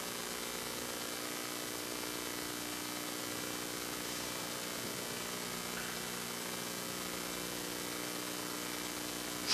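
Steady electrical hum with a faint hiss from the church sound system, with no speech. A brief sharp noise comes right at the very end.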